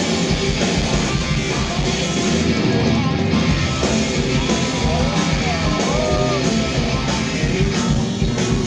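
Live rock band playing through the stage PA: electric guitar, electric bass and drum kit.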